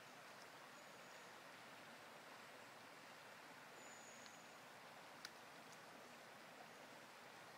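Near silence: a faint, steady rush of shallow river water. Two brief, thin, high whistles come about a second in and about four seconds in, and one faint click comes about five seconds in.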